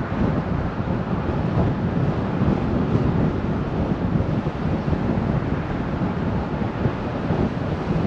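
Steady wind noise buffeting the microphone, over the rumble of a car driving at speed on a paved road.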